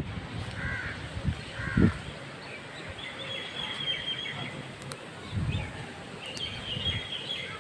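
Birds calling over steady outdoor background noise: two short curved calls a second apart near the start, then high twittering chirps near the middle and again near the end. A couple of dull low thuds are also heard.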